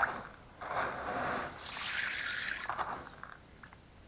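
Hands kneading and stirring aquarium gravel in a container of water, the water and small stones swishing in two strokes over the first three seconds, then quieter.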